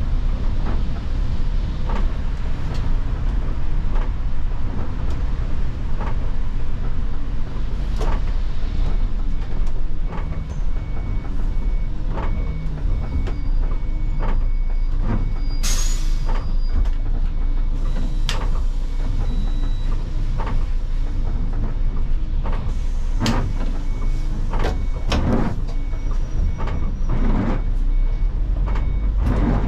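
Cabin sound of an Iveco Crossway city bus on the move, with a steady low engine and road rumble and frequent rattles and knocks from the interior. A faint beep repeats from about a third of the way in nearly to the end, and about halfway through there is a short, sharp hiss of air from the pneumatic system.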